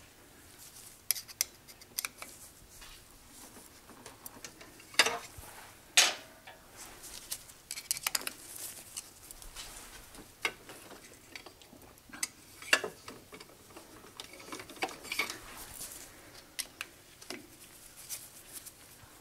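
Metal hand tools and steel lathe parts clinking and knocking as they are picked up and set down, in scattered clicks with the sharpest knocks about five and six seconds in.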